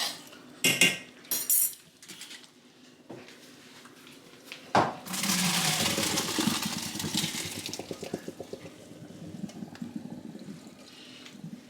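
A few clanks of a pot and utensils, then a sharp knock and a pot of boiled macaroni noodles poured into a strainer, the water rushing out for a few seconds and tapering off to a trickle.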